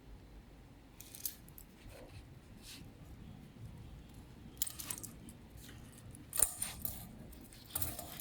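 Light metallic clicks and clinks of a wristwatch being handled, coming in small clusters every second or two, the loudest about six and a half seconds in.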